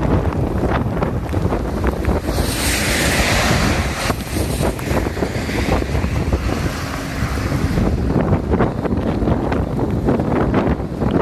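Rushing floodwater under heavy wind buffeting the microphone, with a louder hiss from about two to eight seconds in.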